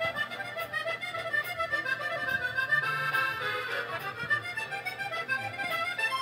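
Accordion music: a quick melody of short notes over a steady bass accompaniment.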